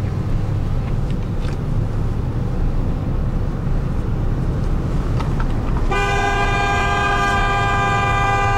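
Road and engine rumble inside a moving car's cabin; about six seconds in, the car's own horn starts and holds one steady blast. Heard from inside the car, its pitch does not change, because the listener moves with the horn.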